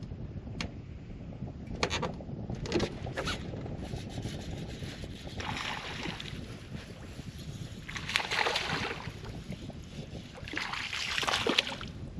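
A small hooked bass splashing at the surface in three short spells as it is reeled in and swung out of the water, over steady wind rumble on the microphone. A few light clicks come in the first few seconds.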